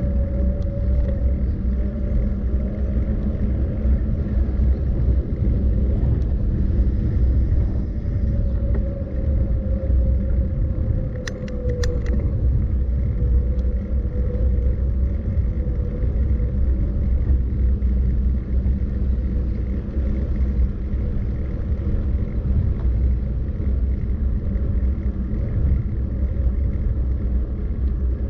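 Steady low rumble of travel noise, road and wind, with a faint wavering whine and a few sharp clicks about eleven seconds in.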